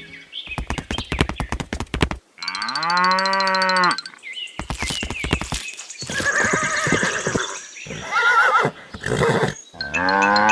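Farm animal calls: two long, level moos, one about two and a half seconds in and one near the end, and a brief wavering horse whinny a little after eight seconds. Quick clicks and taps come in between.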